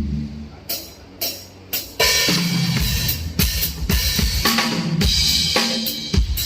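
Drum kit being played at a sound check: a few separate hits, then from about two seconds in a steady beat of bass drum, snare and cymbals.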